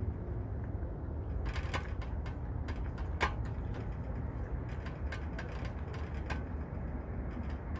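Two cats eating dry kibble from a stainless steel tray: scattered crunches and clicks, several a second at times, over a steady low rumble.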